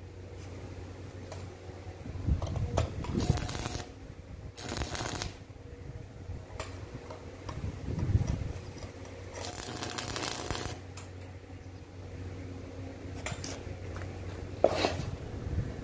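Stick (arc) welder striking short welds on a stainless steel wire grill basket: several separate bursts of crackling arc hiss, each about a second long, over a steady hum. A sharp knock near the end.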